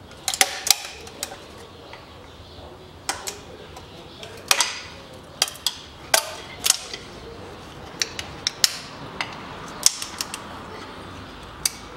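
Sharp metal clicks, taps and short scrapes at irregular intervals as a long screwdriver works along the deck of a Toyota 3S-FE engine block, prying the head gasket loose.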